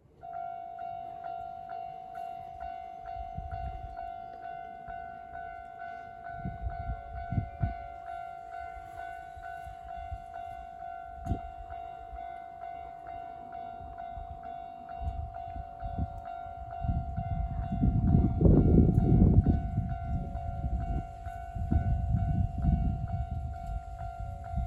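Japanese railway level-crossing alarm ringing in a steady electronic tone, repeating about twice a second, while a Kintetsu Nara Line electric train passes over the crossing. The train's rumble grows loud about three-quarters of the way through.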